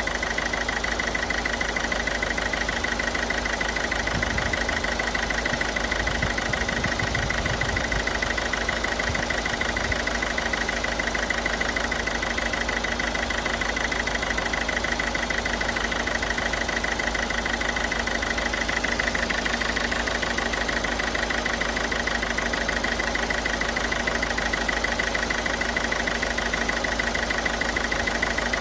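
Ford Figo turbo-diesel engine idling steadily, with a slight miss in its running that the mechanic puts down to injector and carbon deposits.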